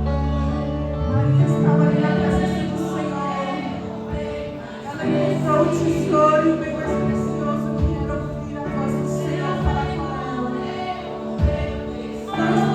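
Live gospel worship song: a choir of voices singing together over instrumental accompaniment with sustained bass notes and occasional beats.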